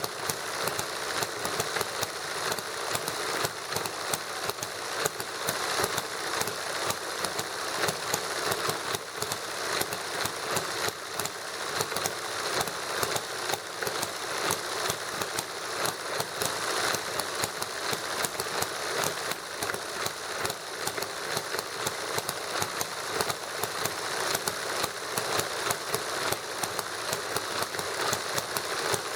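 Small model hit-and-miss gasoline engine running on lighter fluid, with a Stirling engine model running alongside: a steady, rapid mechanical clatter with regular louder firing peaks.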